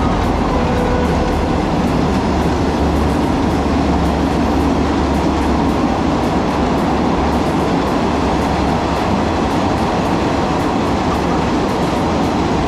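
Train passing close by: a loud, steady rumble of wheels on rails with a regular clacking over the rail joints.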